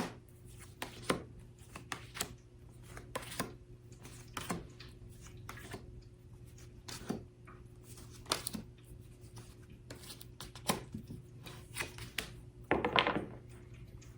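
Tarot cards being drawn and laid down on a table: a string of irregular light taps and slaps, about one a second, with a longer rustling brush of cards near the end. A steady low hum runs underneath.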